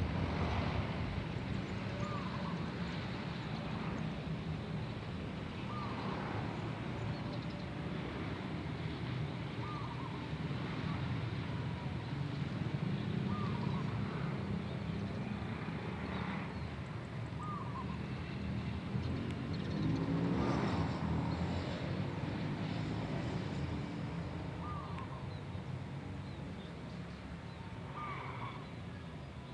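Wild zebra dove (perkutut) calling: a short cooing note repeated about every three seconds. Under it runs a steady low rumble, which swells louder around twenty seconds in.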